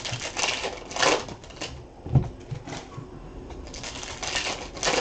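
Trading cards and their pack wrapper being handled by hand: dry rustling and crinkling in quick bursts as cards slide against each other and the wrapper, with a soft knock on the table about two seconds in.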